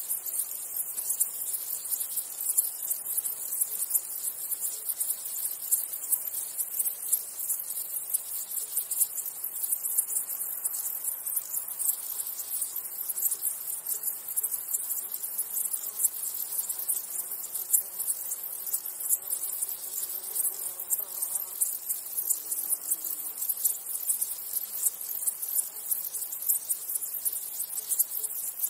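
A steady chorus of stridulating insects: a dense, very high-pitched chirring made of rapid pulses.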